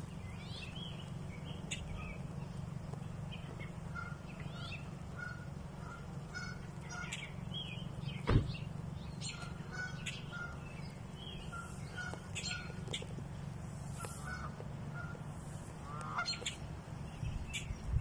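Canada geese calling with short honks repeated about twice a second, among chirping small birds, over a steady low rumble. A single sharp thump a little under halfway through.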